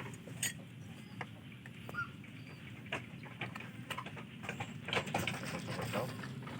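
Farmyard ambience around a livestock pen: scattered knocks and clicks with a few short bird calls over a steady low hum.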